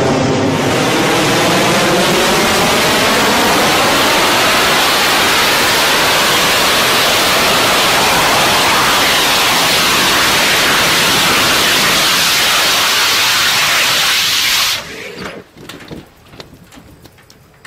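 Rocket engine of a small vertical-takeoff, vertical-landing test rocket running loudly and steadily as it hovers and comes down, with a sweeping, phasing hiss as its height changes. The engine cuts off suddenly about fifteen seconds in as the vehicle sets down, leaving faint crackles and pops.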